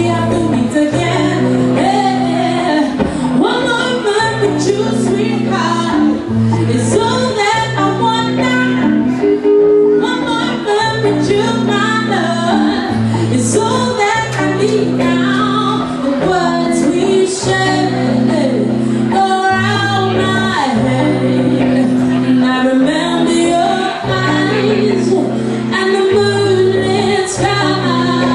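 A woman singing a song live, accompanying herself on electric guitar with steady held chords underneath the vocal line.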